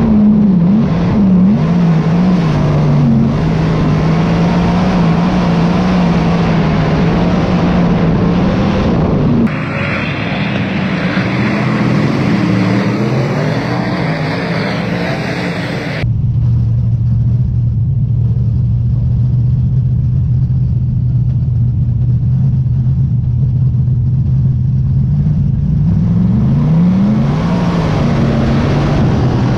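V8 dirt modified race car engine at racing speed, heard from the cockpit, its revs rising and falling through the corners. For several seconds in the middle, several modifieds are heard running past from trackside; then the onboard engine holds steady revs before rising and falling quickly again near the end.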